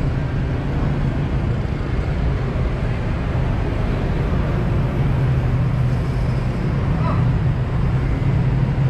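Steady street traffic of motorbikes and cars: a constant low engine hum under a wash of road noise.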